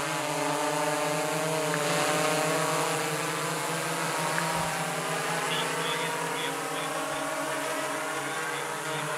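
Six-rotor drone hovering overhead: the steady buzz of its propellers, rising and falling slightly in pitch during the first few seconds as it adjusts its position.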